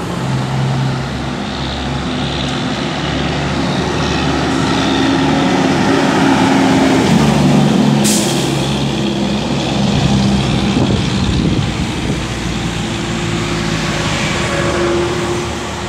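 Semi-trailer trucks' diesel engines running as the trucks pass close by. The engine noise is loudest about halfway through as one truck goes past, and a brief sharp hiss comes at that moment.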